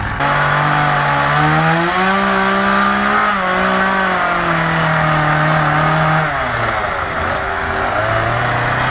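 Chainsaw running hard while carving wood, its pitch rising and falling with throttle and load. The pitch drops lower about six seconds in, then climbs back up near the end.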